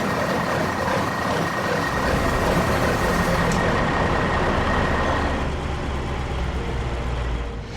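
Heavy construction vehicle engine sound effect: a dense truck-like engine running with a steady high whine that drops away about five seconds in, over a low rumble that cuts off abruptly near the end.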